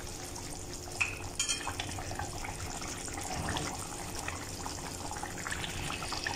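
Chicken Manchurian gravy bubbling steadily in a pan over a gas flame turned up to medium-high, with a few light clinks about a second in.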